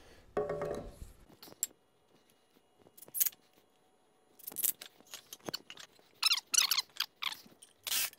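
Wooden 2x4 boards being handled and set against each other on a concrete floor: short squeaks, scrapes and knocks, a brief one about half a second in, then a run of them over the last few seconds.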